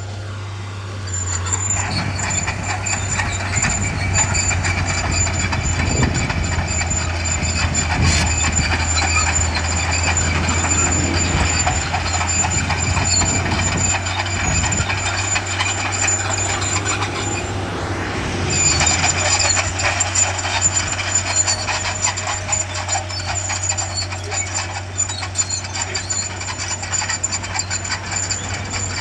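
Heavy diesel engine of a bulldozer working, a steady low drone with a steady high whine over it; the whine breaks off for about a second a little past halfway, then comes back.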